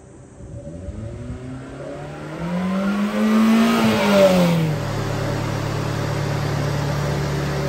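Subaru Sambar truck's small four-cylinder engine revving up, its pitch rising over a couple of seconds, then dropping back about four and a half seconds in and settling into a steady idle.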